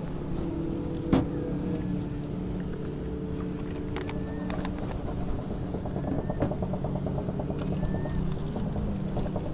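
A car engine running with a steady hum, and a sharp knock about a second in.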